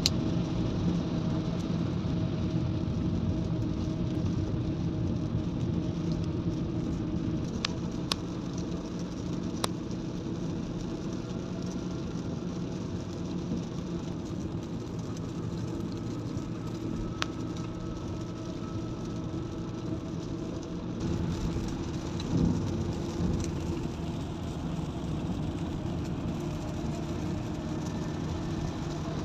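Steady in-cabin noise of a car cruising at about 100 km/h on a wet road: engine hum with tyre hiss, and a few sharp ticks.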